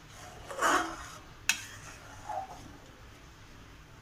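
A metal perforated spoon scooping through thick milky vermicelli pudding in a metal pot: a wet scraping slosh, then one sharp clink of the spoon against the pot about a second and a half in.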